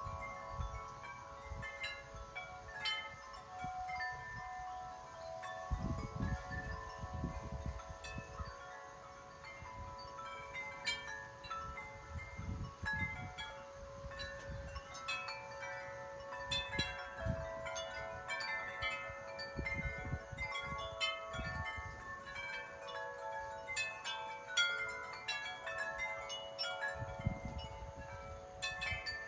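Wind chimes ringing constantly in gusty wind, many overlapping tones struck again and again. Low rumbles of wind buffeting the microphone come and go with the gusts, strongest about six seconds in and again near the end.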